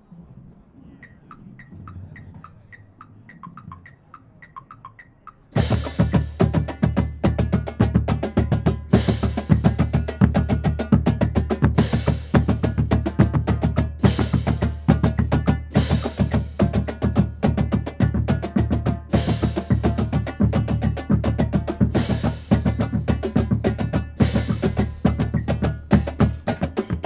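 Marching percussion drumline (snare drums, tenor drums and bass drums) playing a warm-up exercise together. After about five seconds of faint, steady ticking, the full line comes in loud with dense, rapid strokes and an accented hit about every second and a half.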